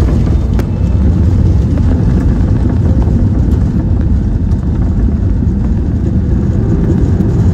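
Steady low rumble of an Airbus A320-200 in motion, even and unbroken, with no tones in it.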